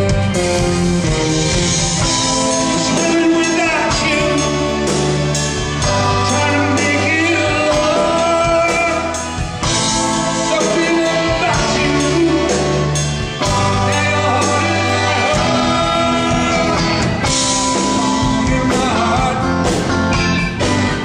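Live rock band playing a song, a lead singer over electric guitar, a bass holding long low notes, and drums.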